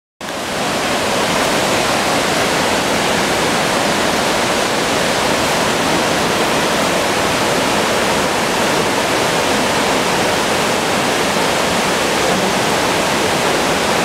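Hirataki waterfall, the uppermost fall of the Kanome Falls, pouring over a broad rock face: a steady, loud rush of falling water with no break or change.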